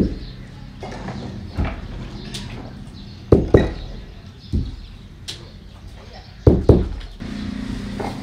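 Hand-carved wooden printing block struck by hand onto cloth during ajrak block printing: dull knocks at irregular intervals of a second or two, the loudest about three and a half seconds in, and a quick double knock near the end.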